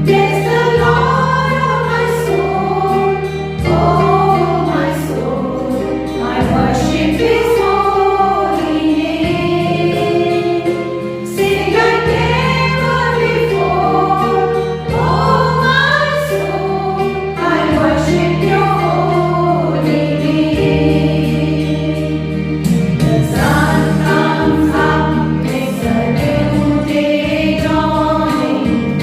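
A group of voices singing a song in chorus over instrumental accompaniment, with steady held low notes underneath.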